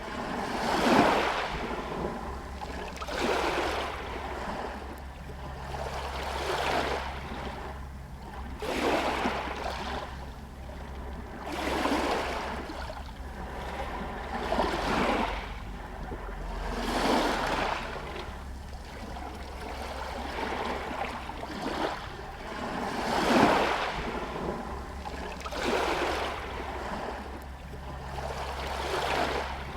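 Small sea waves lapping against a stone pier and shore stones, a soft wash swelling and fading every two to three seconds, over a steady low rumble.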